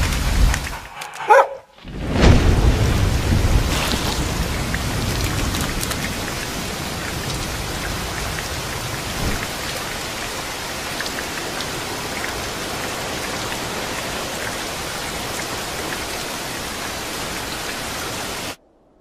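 Steady rain, with a low rumble of thunder near the start and a brief high, wavering cry about a second and a half in. The rain cuts off suddenly near the end.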